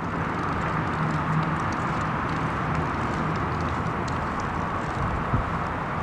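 Chevrolet V8 engine of a 1977 Camaro idling steadily with the hood up, with a constant low hum and faint ticking.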